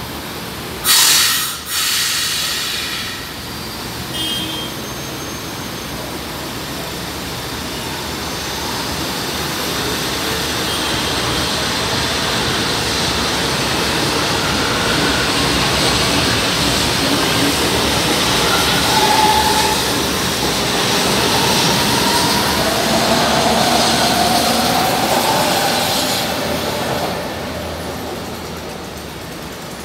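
São Paulo Metro Line 1 train pulling out of the station and speeding up past the platform. A short loud hiss about a second in, then steady wheel and traction-motor running noise that grows louder, with short rising motor tones, and falls away near the end.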